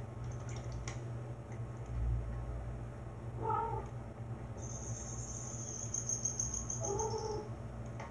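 Cat meowing twice, two short meows about three and a half seconds apart. A thin high steady tone sounds for a few seconds between them, over a steady low hum.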